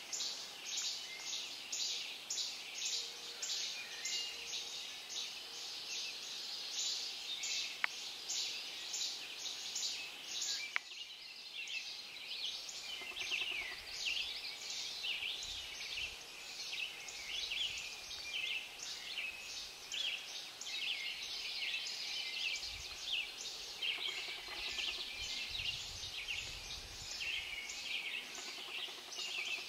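Dawn chorus in a northern forest: many songbirds singing at once, a dense overlap of short, high, repeated songs. Two sharp clicks stand out, about eight and eleven seconds in.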